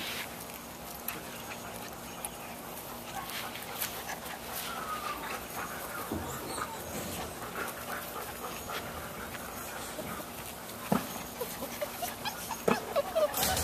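Five-week-old puppies playing and tugging at a synthetic bite rag, giving short whines and yips over scuffling. The calls come thicker and louder near the end.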